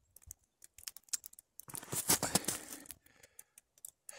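Footsteps crunching on snow: scattered irregular crunches and rustles, thicker and louder for about a second around two seconds in.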